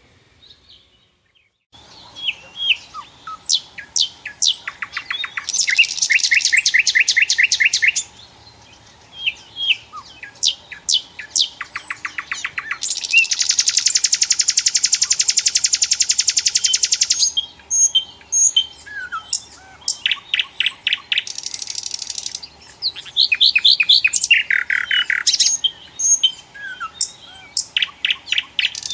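Nightingale singing a varied song of fast trilled phrases, buzzy rattles and short whistled notes, with brief pauses between phrases. It starts after a second or two of quiet, and a long buzzing rattle comes about halfway through.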